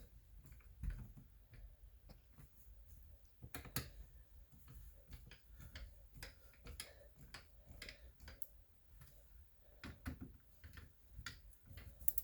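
Faint, irregular clicks and taps of a hand screwdriver and plastic parts being handled as screws are snugged down by hand.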